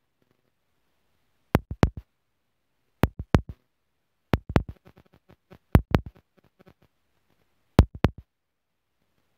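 Fireworks shells bursting overhead: five groups of two to four sharp bangs, about one every one and a half seconds, with faint crackling between some of the groups.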